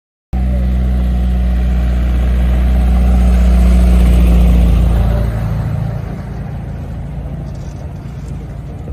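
Engine of a road tourist train pulling open passenger carriages, running as it drives past; loudest a little before the middle and dropping away after about five seconds as it moves off.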